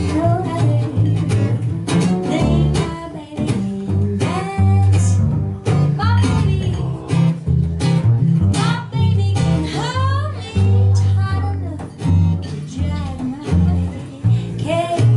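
Live acoustic duo: a woman singing over her strummed acoustic guitar, with a plucked upright double bass playing a line of low notes that changes about twice a second.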